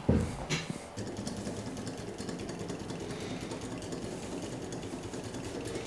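Small brass model steam engine running steadily, with a rapid, even ticking beat. A thump and rustling come in the first second, as a chair is got up from.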